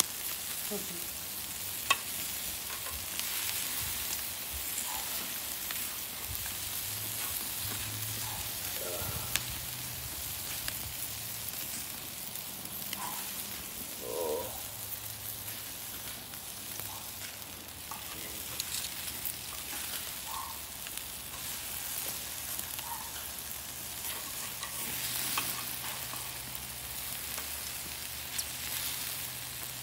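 Pork pieces sizzling over hot charcoal on a kettle grill: a steady hiss with fine crackling. A few sharp metal clicks from the grill tongs, one about two seconds in.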